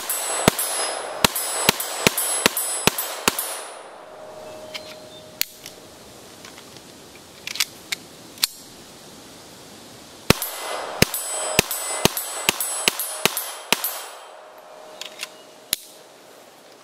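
Norinco TT Olympia .22 LR semi-automatic target pistol fired in two quick strings of about eight shots each, roughly two to three shots a second, with a pause of several seconds between them. A few quieter clicks fall in the pause and after the second string.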